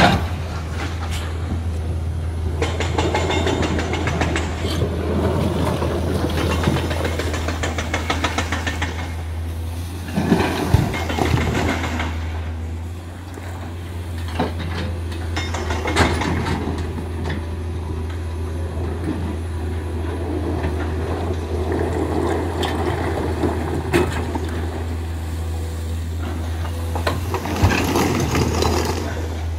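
Komatsu PC200 excavator's diesel engine running steadily under hydraulic load as it digs, with a few sharp knocks of rock against the bucket.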